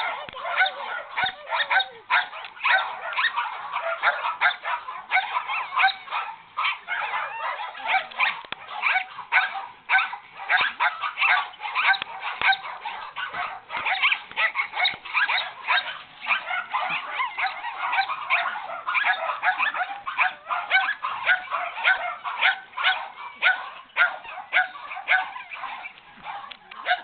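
White miniature schnauzer puppy barking in an almost unbroken string of short, high-pitched yaps, several a second: excited barking during tug-and-chase play with a toy.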